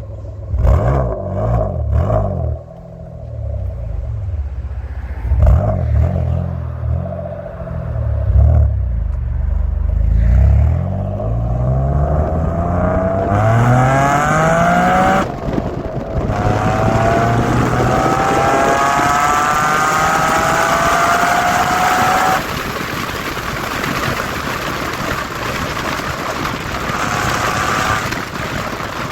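Mitsubishi FTO GPvR's 2.0-litre 6A12 MIVEC V6 engine and exhaust: a few short throttle blips, then hard acceleration with the engine note climbing, dropping sharply at gear changes about fifteen and twenty-two seconds in, and climbing again.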